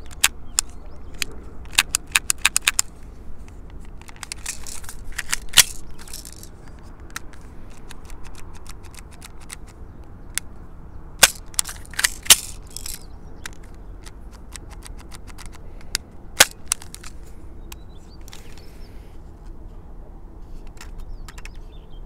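Airsoft Beretta M92FS pistol being worked by hand, giving sharp mechanical clicks and snaps. There is a quick run of about six clicks early, scattered single clicks, and a few louder snaps around the middle.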